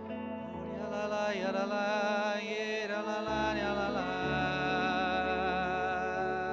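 Worship music: slow sustained singing over held instrumental chords, the chord shifting a few times.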